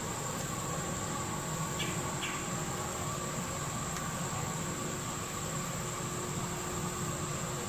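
Steady background hum with a constant high-pitched whine over it, unchanged throughout, and two faint ticks about two seconds in.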